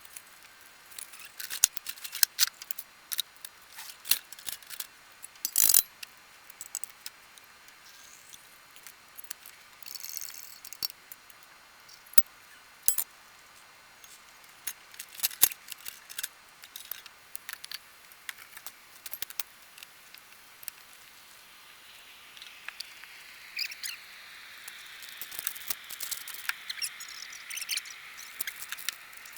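Coffee-making gear being handled: scattered clicks, clinks and knocks, with a steady hiss coming in after about twenty seconds and a tone that climbs near the end.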